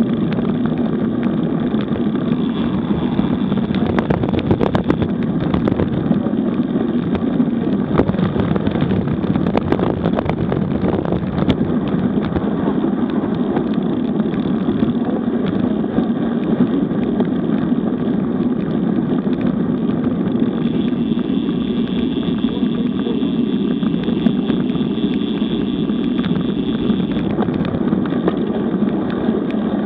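Steady rush of wind and tyre-on-road noise from a road bicycle ridden at about 25–32 km/h, with a few sharp clicks or knocks between about four and twelve seconds in.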